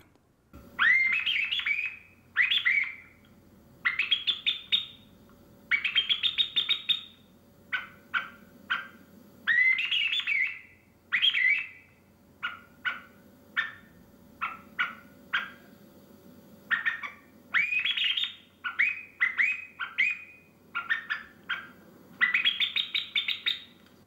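Small tin blackbird call being played to imitate a common blackbird: whistled chirps and quick tweets, many of them rising in pitch, in bursts of about a second with short pauses between.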